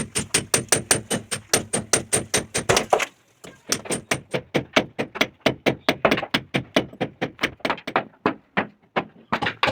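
Rapid, even hammer blows, about four to five a second, with a short break about three seconds in before the striking resumes.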